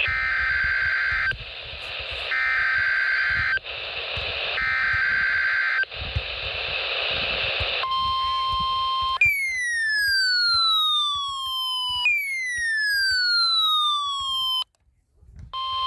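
NOAA Weather Radio test alert over a radio hiss: three short data bursts of the SAME header, about a second apart. Then a steady single-pitched alarm tone, the 1050 Hz warning alarm tone, followed by two falling siren-like electronic sweeps. The alarm tone starts again near the end after a brief silence.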